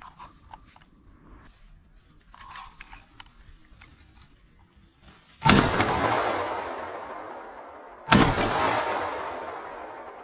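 Two shotgun blasts about two and a half seconds apart, each followed by a long fading echo through the woods.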